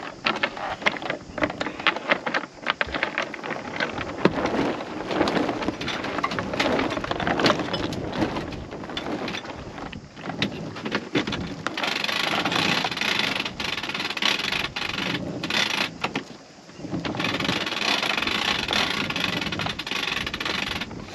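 Wind buffeting the microphone on a sailboat's deck, with the partly hoisted, loose mainsail flapping and clattering in irregular knocks. The wind noise grows heavier about halfway through, with a short lull shortly after.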